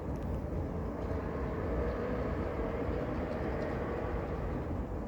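Steady outdoor background rumble with a faint wavering hum and no distinct barks.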